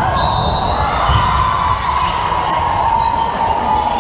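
Steady chatter and crowd noise at a volleyball match, with a few low thuds of the volleyball being hit or hitting the floor.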